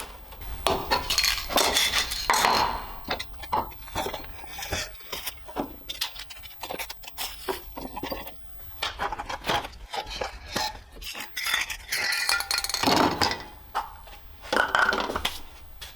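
Hard objects clinking and clattering as they are handled and set down: a long run of irregular knocks and clinks, busiest near the start and again near the end.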